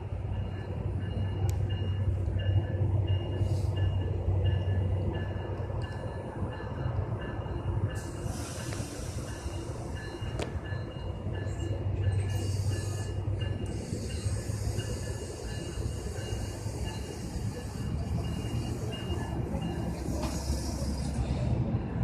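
Diesel commuter train pulling out of the station: a steady low engine rumble with the locomotive's bell ringing repeatedly, and a high hiss joining in about eight seconds in.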